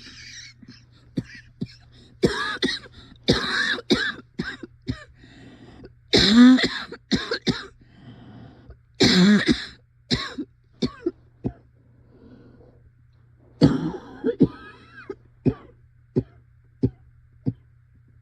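A person's coughing fit: harsh coughs in quick clusters, the longest and loudest about six and nine seconds in, then short single coughs spaced out near the end.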